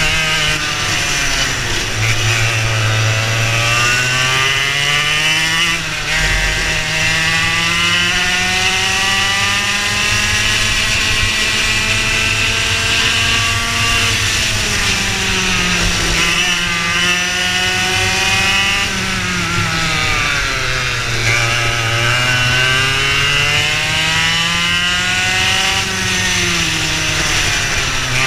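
Racing kart engine at full throttle, its pitch climbing for several seconds along each straight and dropping quickly as the kart brakes for a corner, about five times over.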